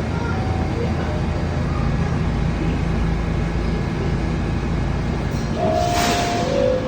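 Steady low rumble of an R68 subway car. Near the end comes a short burst of air hiss and then the car's two-tone door chime, a higher note falling to a lower one.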